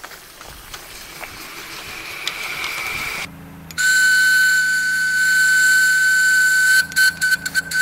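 Steam whistle of a 3.5-inch gauge live-steam model NER Raven A2 Pacific locomotive. It is first held as one long steady note, then sounded as a string of short rapid toots near the end. Before the whistle, a quieter rising hiss of the engine under steam.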